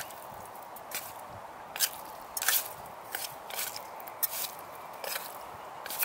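Fingers working something inside a small metal camping pot, in irregular short scrapes, squishes and crunches, about eight or nine of them, over a steady faint hiss.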